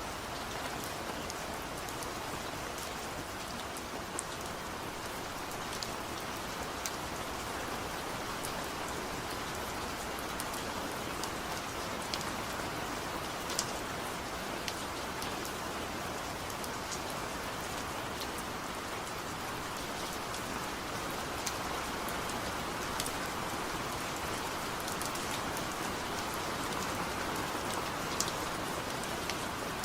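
Steady rain falling: an even hiss of rain with scattered sharper drops ticking close by.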